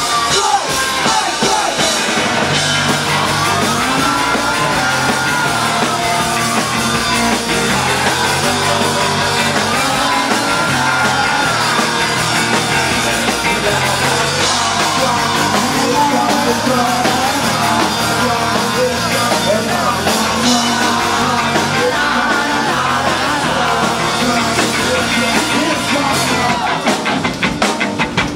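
Live punk band playing loud, with electric guitar, bass guitar and drum kit, recorded close to the stage.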